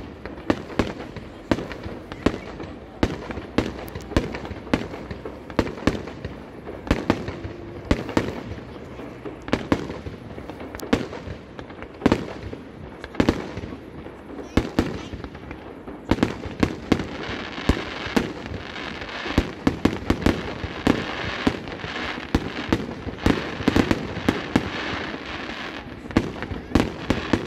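Aerial fireworks display: a fast, continuous run of shell bursts and bangs, several a second, with crackling filling in more densely from about halfway through.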